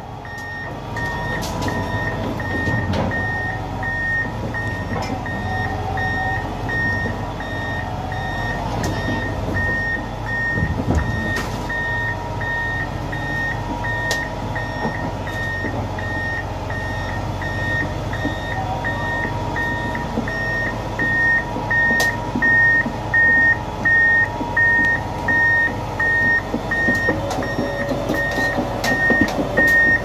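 Heavy machine's reverse alarm beeping in a steady, regular rhythm over the low running of its diesel engine, with a few scattered knocks.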